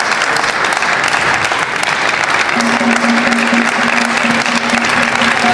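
Crowd applauding in an indoor arena at the end of a badminton match; about halfway through, a steady low note of music comes in underneath the clapping.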